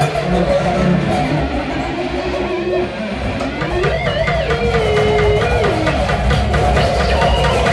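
Free-improvised instrumental music: plucked, electric-sounding string instruments over a steady low bass. A sustained note slides up about three seconds in, holds, and slides back down near six seconds.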